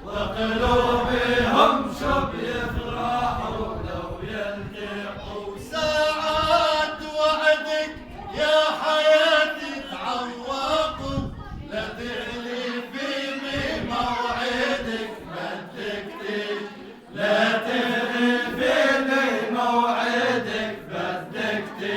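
A man singing an Arabic song, drawing out long ornamented notes with a wavering vibrato rather than clear words.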